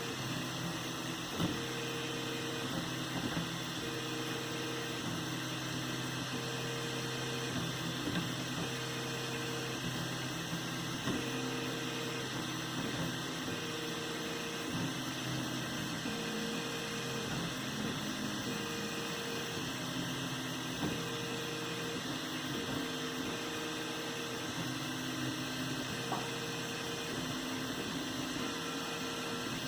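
3D printer running a print: a steady hum with short pitched motor whines that start and stop about once a second, changing pitch from one move to the next.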